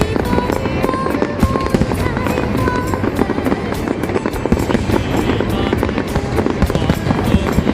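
Fireworks going off in a dense, continuous crackle of rapid bangs, with music playing alongside.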